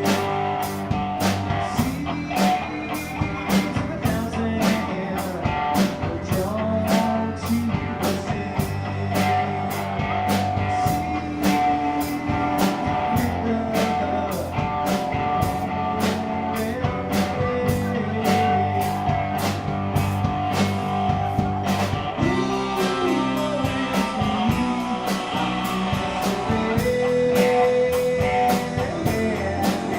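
Live rock band playing an instrumental passage: guitar lines over bass and a steady drum beat.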